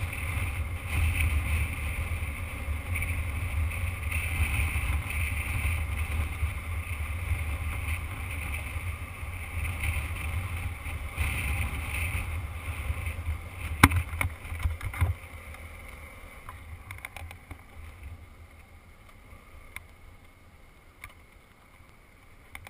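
Motorcycle riding on a gravel road: the engine and wind rushing past the mounted camera make a steady, heavy rumble. Two sharp clicks come about two-thirds of the way through, and over the last several seconds the noise falls away as the bike slows.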